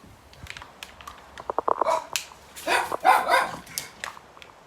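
A dog barking a few times, loudest about three seconds in.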